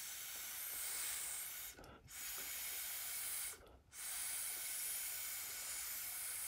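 Breath blown steadily through a plastic drinking straw onto wet Mod Podge gloss to push it into ripples: three long hissing blows with short pauses for breath, the last the longest.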